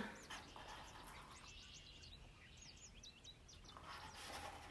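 Near silence with faint, quick, high bird chirps repeating through the first three seconds or so. Near the end a soft rustle as a hardcover picture book is handled to turn the page.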